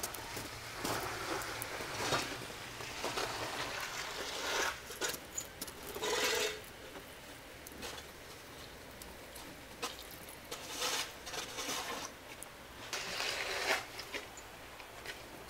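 Footsteps crunching in fresh snow, in irregular short bursts of crunching and rustling.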